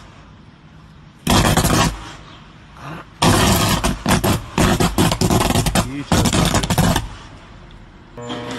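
Underground power cable shorting out in a dug-up hole: electrical arcing, a loud burst of crackling about a second in, then a longer run of loud crackling from about three to seven seconds in.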